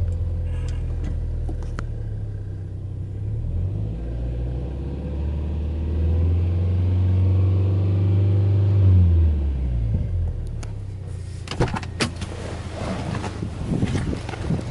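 Subaru Legacy B4 2.5GT's turbocharged 2.5-litre flat-four engine, heard from inside the cabin, revved in park from idle and held at about 3,000 rpm for a few seconds, then dropping back to idle about ten seconds in. Near the end, a few knocks and rustles.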